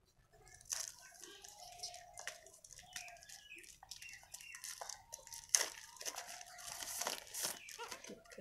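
Thin plastic sleeve of a power bank crinkling and tearing as it is pulled off by hand: an uneven run of crackles, loudest about halfway through.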